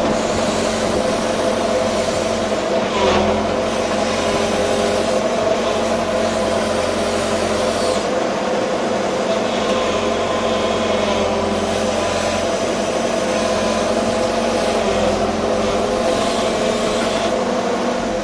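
JCB 140 excavator's diesel engine running steadily under working load, with a constant hydraulic pump whine, heard from inside the operator's cab as the boom and bucket work.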